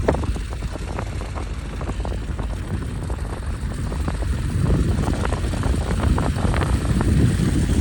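A vehicle's low rumble, with many scattered ticks and crackles over it, growing slightly louder toward the end.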